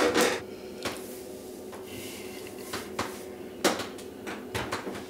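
Scattered light clicks and knocks from a pen and small objects handled at a desk, spaced irregularly about half a second to a second apart, over a faint steady hum.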